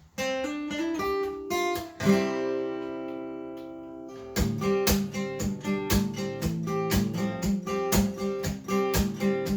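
Acoustic guitar intro: a few picked notes, then a chord left to ring out and fade, then steady rhythmic strumming from about four seconds in.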